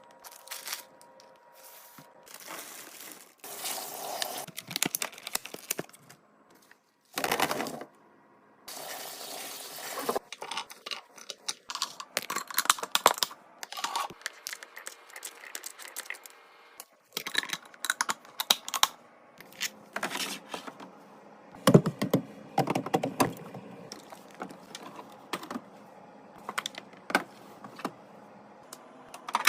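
Food packaging and plastic containers handled and set down: a busy run of clicks, taps, short crinkling and tearing rustles, with a few abrupt cuts between clips.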